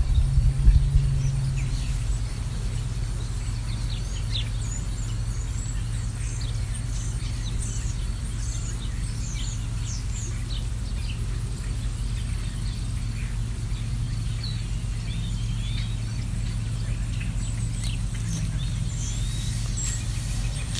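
Songbirds chirping in many short calls over a steady low hum, which is louder for the first two seconds.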